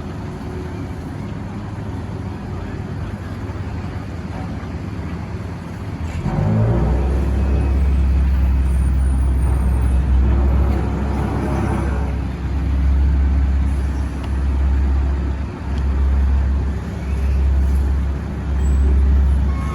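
Heavy diesel engine of an asphalt tipper lorry running close by as it unloads asphalt for a road paver. About six seconds in the engine note rises and a deep rumble comes in, then swells and dips repeatedly.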